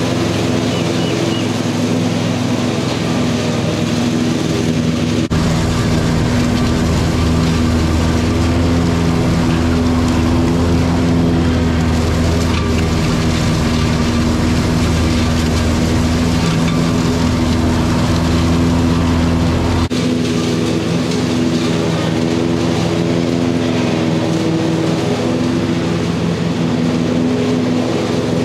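Cub Cadet Ultima ZTX zero-turn mower running steadily while mowing, a constant engine hum. From about five seconds in to about twenty seconds it is heard closer, with a much deeper rumble underneath.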